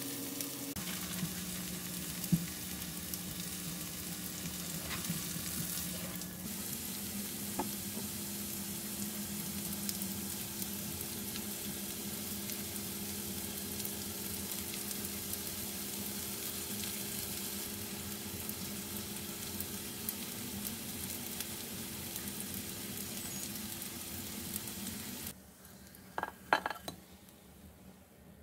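Shredded potato pancake frying in oil in a nonstick pan: a steady sizzle over a low hum. Near the end the sizzle cuts off suddenly, and two or three light clicks follow.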